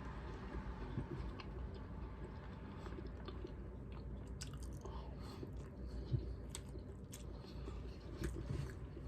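A person chewing and biting food close to the microphone, with faint small crunches and mouth clicks scattered throughout.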